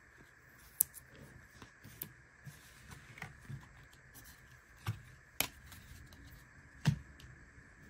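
Glossy Panini Prizm football cards being handled and thumbed through, giving soft rustles and scattered sharp clicks of card against card. The loudest clicks come about a second in, around five and a half seconds and near the end.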